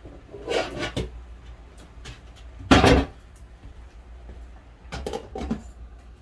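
Kitchen handling noises from cookware and cupboards: a few short knocks and rattles, with the loudest clunk about three seconds in and more clatter near the end.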